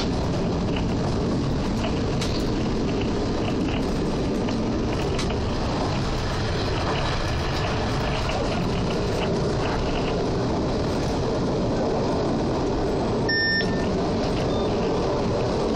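NE81 diesel railcar train running along the track, heard from the driving cab of its control car: a steady rumble of wheels on rail with faint clicks. A short high beep sounds near the end.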